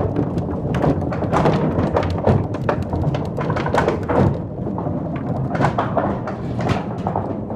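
Balls rolling down a wooden thunder run, the trough in a theatre's roof space used for stage thunder: a continuous low rumble broken by many knocks and thuds as they bump along the wood.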